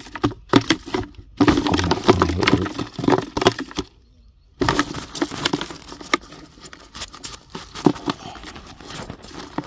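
Dense crackling and scratching from handling inside a plastic bucket holding caught skinks, with a short lull about four seconds in.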